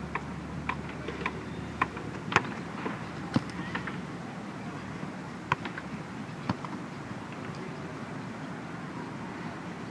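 Sharp, irregular taps of a football being struck by foot: several in the first four seconds, the strongest about two and a half seconds in, a couple more around five and a half and six and a half seconds, then none. Under them runs a steady outdoor hiss.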